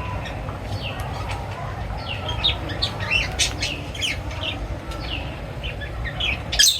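Many small birds chirping, with short falling chirps overlapping over a steady low rumble. There is a sharp, louder burst near the end.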